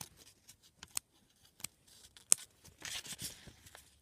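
Scissors cutting paper: a few sharp snips, the loudest about two and a half seconds in, followed by a short stretch of paper rustling as the blades work around a circular finger hole.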